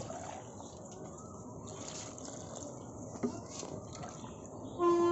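Water poured from a small plastic mug into potted plants, trickling and dripping into the pots over a steady background hiss. A steady held tone with overtones starts right at the end.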